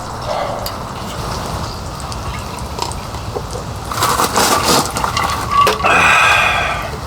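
Steady rain in the background. About four seconds in, a louder couple of seconds of liquid being poured into a vessel, with some clatter of cookware and a brief ringing tone near the end.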